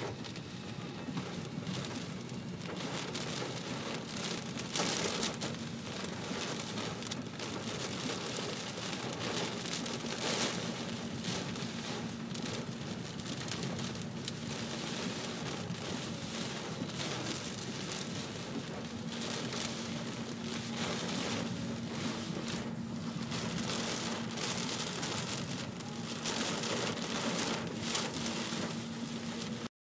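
Heavy rain pelting the car's roof and windshield in a severe thunderstorm, heard from inside the car as a dense, continuous patter of impacts, with a steady low hum underneath. The sound cuts off suddenly near the end.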